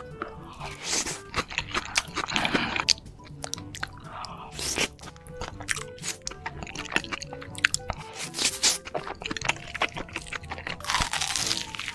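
Close-miked eating: crunchy bites and wet chewing in quick irregular clicks and bursts, over light background music.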